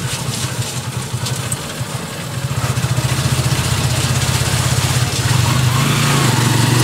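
Motorcycle engine of a motorized tricycle running under way, heard from inside the sidecar, with road and wind hiss over it. It grows louder over the first few seconds as the tricycle picks up speed, then holds steady.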